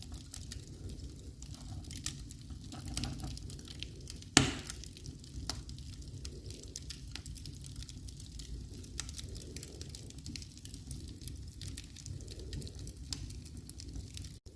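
Wood fire crackling in a fireplace: scattered small snaps and ticks over a low rumble, with one loud pop about four seconds in.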